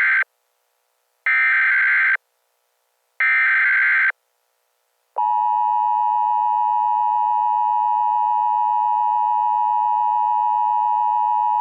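Emergency Alert System SAME header: three bursts of data tones, each just under a second long and about a second apart, the first already under way. About five seconds in, the steady two-tone EAS attention signal begins and holds, announcing the emergency message to come.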